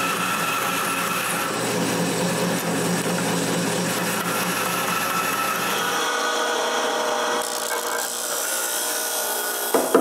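Bandsaw running and cutting a stacked pack of maple pieces. About six seconds in, it gives way to a disc sander running as the maple is pressed against the sanding disc to shape it.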